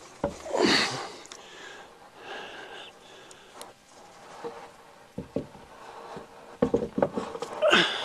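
A man breathing hard while working, with a few short knocks about five seconds in and again near the end.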